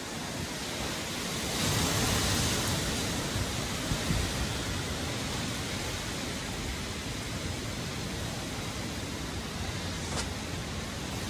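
Strong hurricane wind rushing through trees and buffeting the microphone, with a gust swelling about two seconds in.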